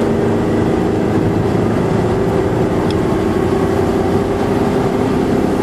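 Car engine running steadily at road speed, a low hum over tyre and road noise, heard from inside the car.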